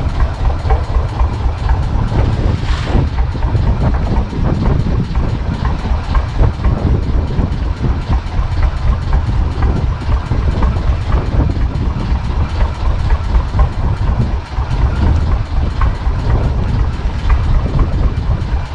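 Fishing boat's engine running steadily, with a fast, even beat.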